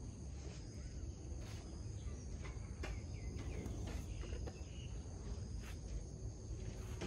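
Insects droning steadily in two high, even tones, over a constant low rumble, with a few faint clicks and short chirps scattered through.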